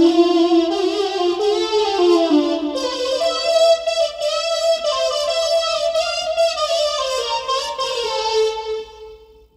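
Korg Nautilus keyboard playing a slow, descending melody on a lead patch with vibrato over held lower notes; the sound fades out near the end.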